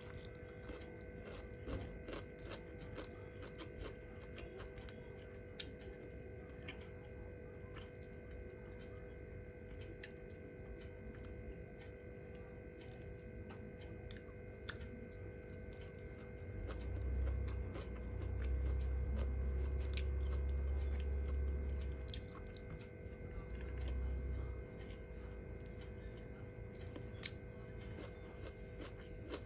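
A person chewing and biting food, with scattered small crunches and clicks over a steady hum. A low rumble comes in a little past the middle and lasts several seconds, then briefly returns.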